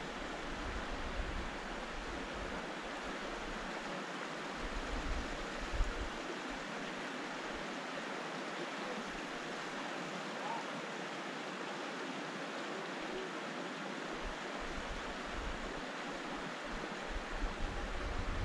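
Small mountain creek running over rocks, a steady rush of water. Now and then a low rumble comes and goes beneath it.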